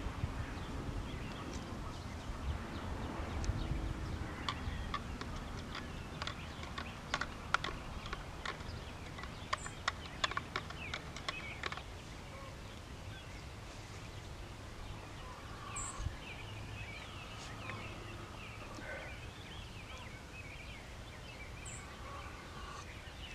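Instant coffee being stirred in a cup: a spoon or stirrer clinks lightly and quickly against the cup for several seconds, then stops, leaving a quiet outdoor background.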